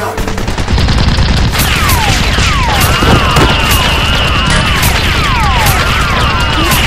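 Movie-style gunfire sound effects: a dense run of rapid shots that kicks in loudly about a second in, with whizzing, swooping tones laid over them.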